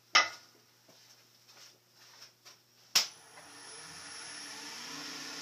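Two sharp clicks, one near the start and one about three seconds in, with a few light knocks between them; after the second click a wood lathe's motor starts and hums steadily, rising gradually in level and pitch as it spins up.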